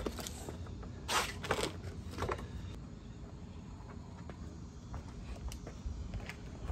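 Handling noises from assembling a kids' e-bike and clearing its packaging: a few brief rustles about a second in and again near two seconds, then only faint small clicks, over a low steady rumble.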